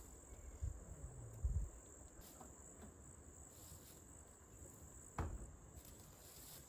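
Steady high chirring of crickets or other insects, with a couple of low thumps about a second in and a sharper knock about five seconds in as a Chevrolet pickup's driver door, its hinge bushings worn out, is swung shut.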